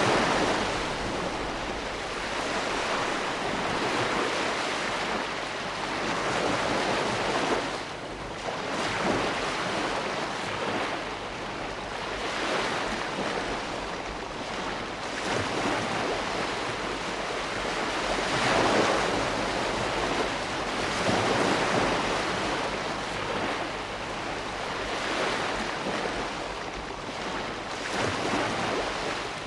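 Ocean waves breaking and washing in, a continuous rush of surf that swells and eases every few seconds.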